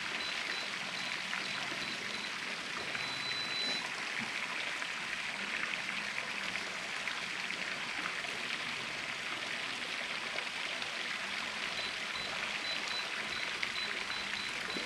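Steady, even background hiss, with a faint high tone that comes and goes; no distinct knocks or clicks.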